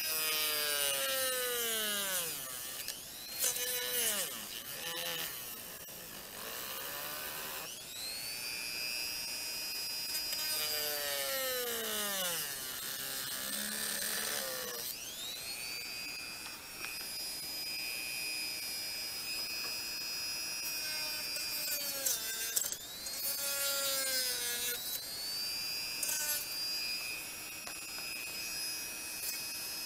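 Small corded rotary tool (die grinder) cutting into a vehicle trim panel: a high whine that sags and recovers again and again as the bit bites in and eases off, with a few brief stops and spin-ups.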